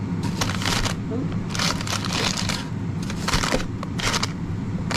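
Greaseproof paper crinkling and rustling in an air fryer basket as puff-pastry bakes are lifted and turned over. It comes in irregular bursts over a steady low hum.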